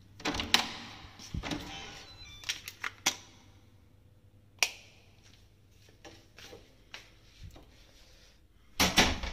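Hotel room door being unlocked with a key card and opened: a run of clicks and knocks from the lock, handle and latch, and the card pushed into the room's wall power slot. A louder cluster of knocks comes near the end.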